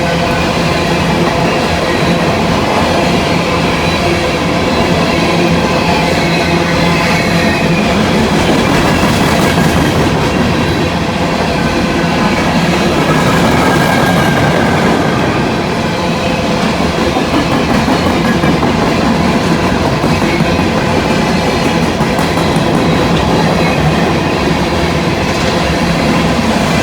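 Long loaded coal train of hopper cars rolling past, a steady rumble of wheels clattering over the rail joints.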